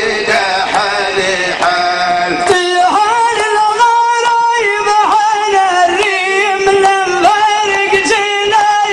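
A man singing an unaccompanied-sounding Arabic folk melody into a microphone, holding long notes and ornamenting them with wavering turns.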